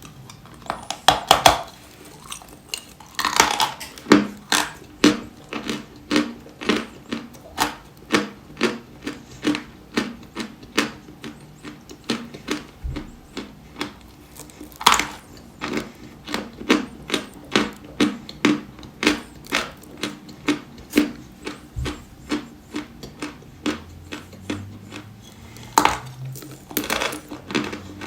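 Dry white chalk being bitten and chewed: steady crisp crunches about three a second, with a few louder snapping bites near the start, about midway and near the end.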